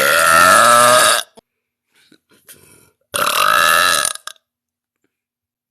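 A woman burping loudly twice: a long belch of about a second and a quarter, then after a pause of about two seconds a second belch of about a second.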